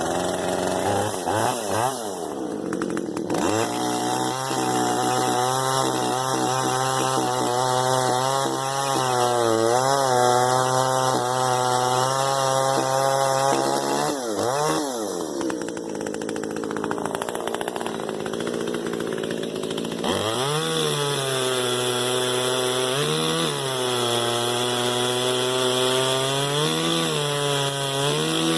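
Small two-stroke top-handle chainsaw revved to full throttle and held there, dipping briefly now and then as it cuts through small logs. It drops back to idle about halfway through, then revs up and cuts again.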